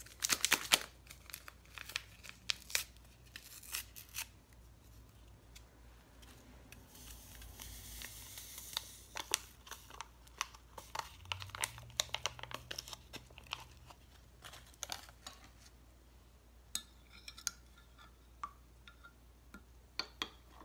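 A paper yeast packet is torn open and crinkled, and the granules are shaken out of it. Near the end a spoon stirs in a glass measuring cup with a few light clinks.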